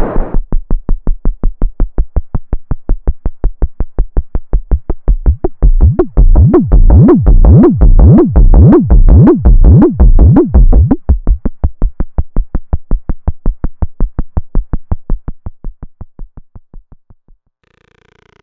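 Moog Spectravox synthesizer oscillator repeating a short, low bass note about five times a second through its filter. In the middle the filter resonance sweeps up and down several times, making the notes louder and brighter, then the notes fade out and stop shortly before the end.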